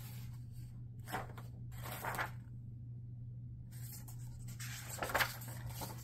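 Paper pages of a picture book being handled and turned: a few brief papery rustles in the first couple of seconds and another about five seconds in, over a steady low hum.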